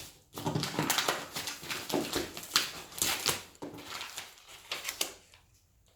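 Knife cutting and tearing through the wrapping of a heavy parcel: irregular scraping and ripping strokes for about five seconds, stopping near the end.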